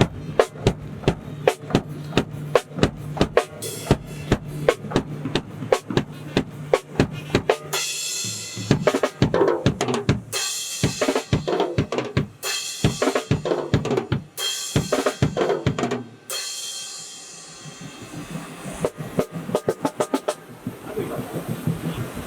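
Drum kit being played through a sound system: a steady, even kick-and-snare beat, then from about eight seconds in looser snare hits and fills that break off briefly and start again.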